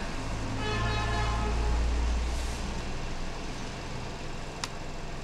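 Road traffic: a heavy vehicle passing with a low rumble that fades after about three seconds, and a vehicle horn sounding for about a second and a half near the start. A single sharp click comes near the end.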